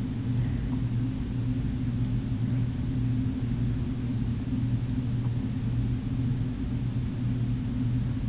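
A steady low hum, even in level, with no other sound standing out.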